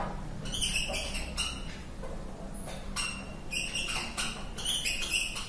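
Marker pen squeaking and scratching across a whiteboard while writing, about a dozen short strokes in quick succession.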